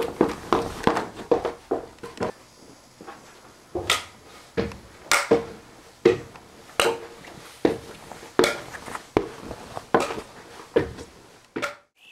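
A run of irregular scuffs and knocks from someone moving about and handling things in a small room, several a second at first, then about one a second, with a brief drop out just before the end.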